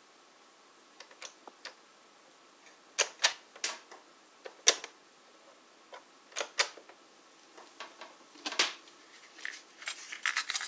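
Mechanical piano-key buttons of a Sanyo M-W15K boombox's cassette deck being pressed and released: a scattered series of sharp plastic clacks, with a quick flurry of clicks near the end as a cassette door is opened.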